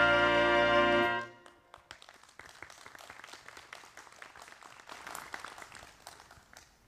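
Jazz orchestra with brass holding a final chord that ends about a second in, followed by faint scattered clicks in the room.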